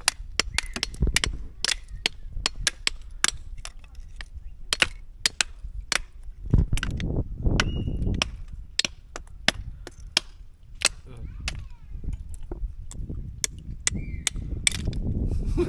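Sharp, irregular knocks, a few a second, of a stone and a knife blade striking spider conch shells on a rock as the shells are cracked open to get the meat out.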